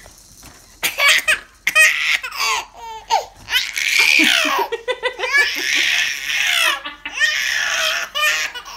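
Baby boy laughing in repeated, breathy belly-laugh bursts that start about a second in.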